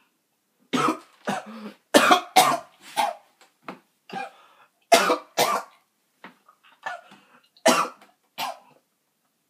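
A man coughing hard again and again with a mouthful of wheat flour: about ten sharp coughs, many in quick pairs, with a short pause around the middle.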